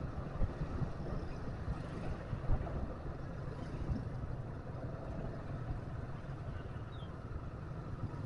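Motorcycle running at low speed through street traffic: a steady low engine and road rumble, with other motorbikes and cars passing close by.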